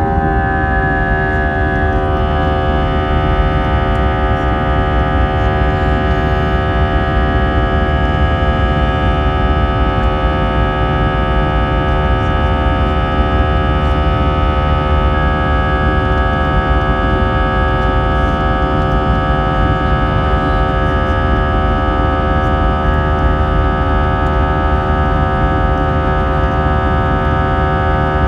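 Airbus A320 jet engines heard from inside the cabin: a steady whine of several tones over a low rumble. The tones dip slightly in pitch and settle in the first couple of seconds, then hold steady.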